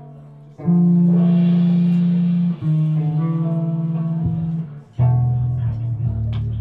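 Electric guitar of a screamo band playing live: a few quiet picked notes, then loud held chords ring out about half a second in, changing about two seconds later, with a short break and a fresh loud chord near the end.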